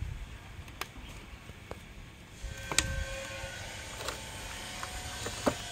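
A few sharp clicks and knocks from a chainsaw being handled and worked on with its top cover off, over a low background rumble; the loudest knocks come about three seconds in and just before the end.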